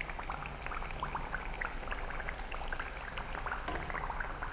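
Kadboli deep-frying in hot oil: a steady scatter of small crackles and pops.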